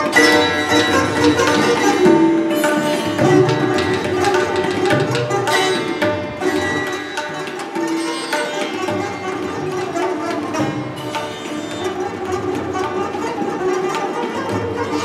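Sitar and tabla playing Hindustani classical music: a run of plucked sitar notes, each ringing with many overtones, over the tabla's low drum strokes.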